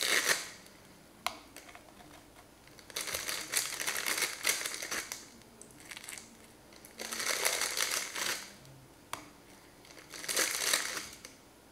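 Crinkling plastic packaging of ladyfinger biscuits as the biscuits are pulled out and laid down, in four bursts of one to two seconds each, with a couple of single sharp clicks between them.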